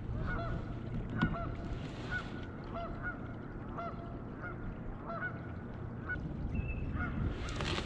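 Canada geese honking repeatedly, short arching honks about once or twice a second, over a low steady rumble.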